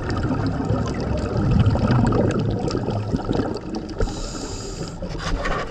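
Scuba diver's breathing through a regulator, heard underwater: a long, crackling burble of exhaled bubbles, then about four seconds in a hiss of breath drawn through the regulator, lasting about a second.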